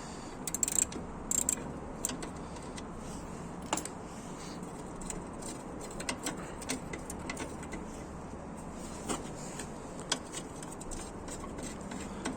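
Scattered small metallic clicks and ticks of hand tools working on the car's horn mount, as the horn's 10 mm fastener is undone. A few sharper clicks come in the first second and a half.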